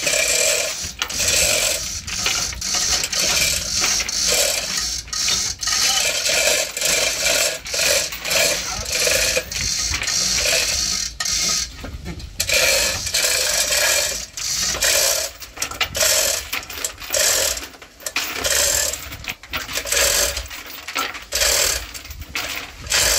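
Continual metallic clinking and rattling: many quick irregular knocks of metal on metal, with a brief lull about halfway through.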